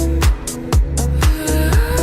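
Background music: an instrumental passage of a dance-style song with a steady kick-drum beat, about two a second, over a held bass line.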